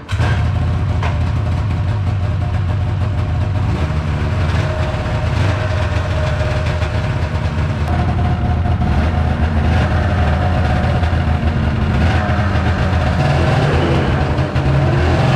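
Carbureted two-stroke Rotax engine of an old Ski-Doo MX Z snowmobile catching on a cold start after sitting all summer, then running steadily.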